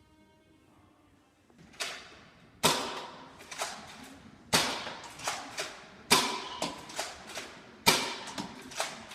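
Foam-dart toy blasters firing: a run of sharp knocks and clacks, with a loud one about every second and a half and smaller ones between, some leaving a brief ringing tone. It starts after a quiet second and a half.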